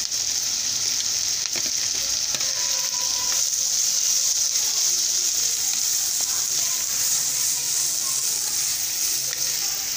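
Chopped onions, green chillies and curry leaves sizzling steadily in hot oil in a clay cooking pot, stirred with a wooden spatula with a few faint scrapes. The onions are being sautéed until soft.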